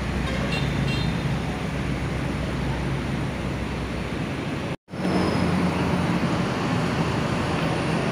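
Diesel engine of a parked Mercedes-Benz intercity bus idling steadily, a low hum that drops out for a moment about five seconds in.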